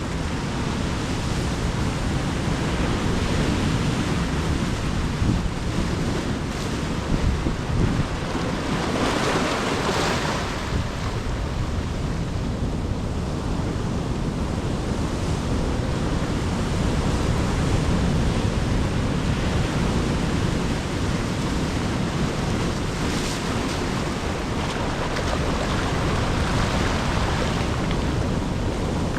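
Ocean surf washing on the shore in a continuous rush, with waves breaking more loudly about a third of the way in and again near the end.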